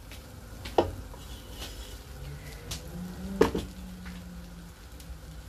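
A wooden spatula stirring and turning fried rice in a large nonstick pot, with a soft scraping of rice against the pot. The spatula knocks sharply against the pot twice, about a second in and again past the middle.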